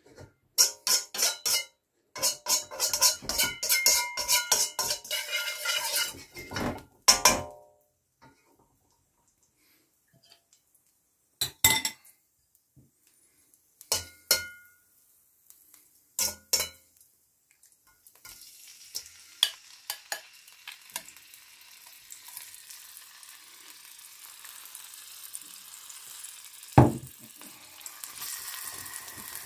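A metal spoon scrapes and clanks against a wok in quick ringing strokes for the first seven seconds, then gives a few separate clinks. From about halfway a frying sizzle builds as marinated prawns cook in the hot oil, with one loud knock near the end.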